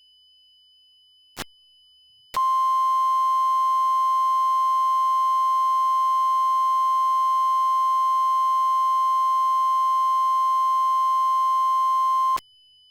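Emergency alert warning tone: a loud, steady single tone just above 1 kHz, matching the 1050 Hz NOAA Weather Radio warning tone. It starts about two seconds in, holds for about ten seconds, then cuts off abruptly. It announces a National Weather Service warning. A brief click comes a little over a second in.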